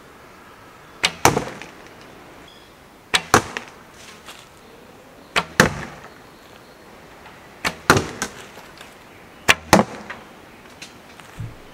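A homemade wooden longbow backed with glass fibre tape is shot five times, about two seconds apart. Each shot is the bowstring's release followed about a quarter second later by the arrow striking a cardboard target.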